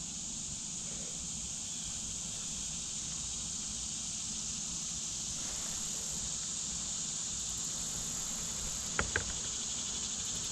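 A steady high-pitched chorus of insects buzzing, with low rumbling underneath. Two quick clicks come about nine seconds in.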